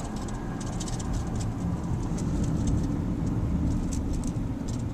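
Steady low rumble of a vehicle moving slowly, heard from inside the cab, with scattered faint ticks over it.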